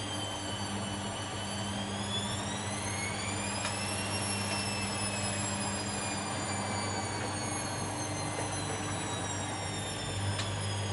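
Bosch Maxx WFL 248Y washing machine running, its motor whining over a steady low hum. The whine rises in pitch over a couple of seconds as the drum speeds up, then slowly drops, with a couple of faint clicks.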